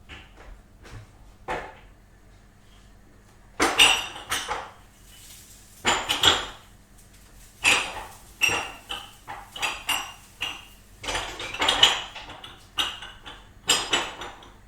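Dishes and cutlery clattering: a few light clicks, then from about three and a half seconds in, repeated bursts of clinking and clattering with a bright ringing tone.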